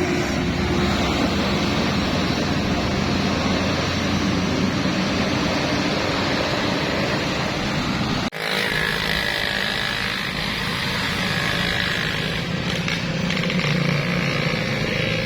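Tour bus engines running steadily with road traffic noise as buses pass. The sound breaks off abruptly for an instant about eight seconds in, then carries on.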